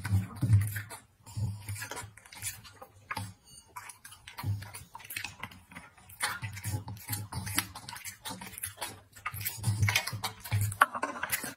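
A dog chewing and smacking its lips: irregular wet clicks and short low thumps from its mouth.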